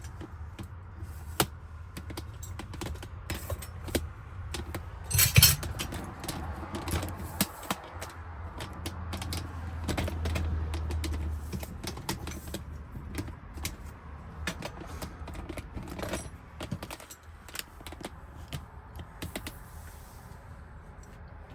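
Small metal lock parts and hand tools clicking and rattling irregularly as a Ford F-150 lock cylinder is worked on for rekeying, with a louder clatter about five seconds in. A low steady hum runs underneath.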